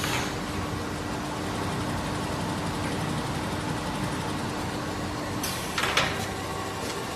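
Industrial quilting and sewing machinery running with a steady mechanical noise and hum. About five and a half seconds in the hum stops, followed by a short burst of hiss with a sharp clack.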